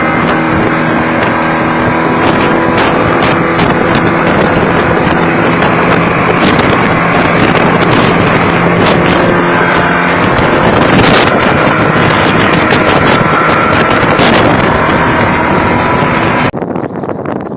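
Motorboat engine running steadily, nearly buried under loud wind noise buffeting the microphone. The sound drops off abruptly about a second before the end.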